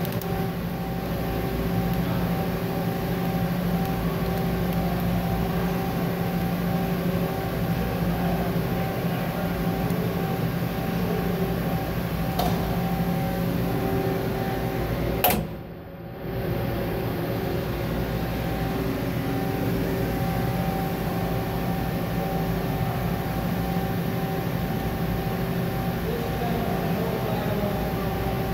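Steady hum of a powered-up CNC machining centre and its shop, holding several steady tones. A faint click comes about 12 seconds in, and a sharp knock about 15 seconds in is followed by a brief drop in the sound, as from the camera being handled.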